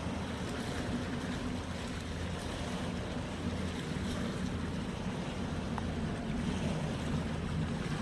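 Small sea waves washing against shore rocks, mixed with a steady low rumble of wind on the phone's microphone.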